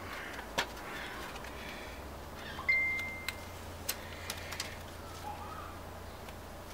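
Scissors set down on a metal intercooler diverter plate: one sharp clink about two and a half seconds in that rings on briefly at one clear pitch, with a few faint taps from hands working along the plate.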